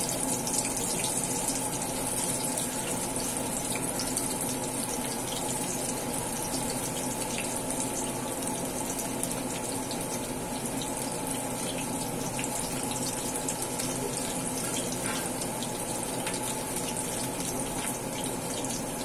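Corn and dill-leaf pakoras deep-frying in hot oil in a steel pan: a steady sizzle with scattered small crackles.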